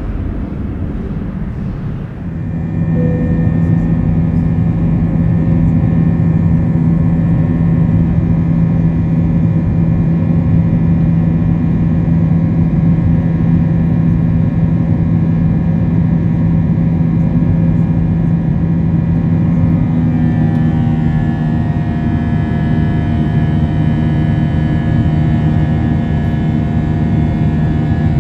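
Airbus A321 jet engines. First, for about two seconds, the takeoff roar heard from outside. Then the steady climb drone inside the cabin, with several fixed tones and a strong low hum; about two-thirds of the way through, new higher tones join as the engine note changes.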